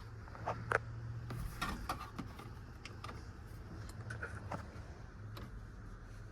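A few sharp clicks and light knocks, the loudest about a second in, over a low steady hum.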